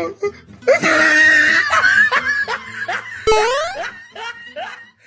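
Bursts of high-pitched laughter with short rising squeals.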